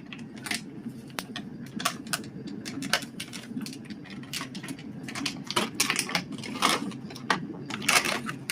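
Irregular light clicks and taps of a spoon against metal bowls and spice containers as spices are spooned out, over a low steady hum.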